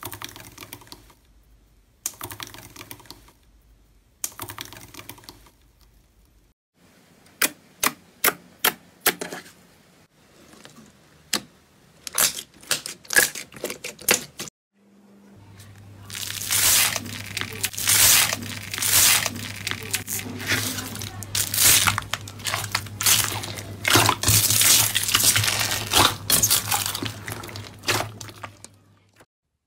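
Crumpled gold foil crinkling under a wire potato masher, pressed in four strokes about two seconds apart. Then glossy slime squeezed by hand gives sharp, separate wet pops and clicks. From about halfway, pink slime kneaded in a bowl gives dense crackling and popping, the loudest part, over a low steady hum.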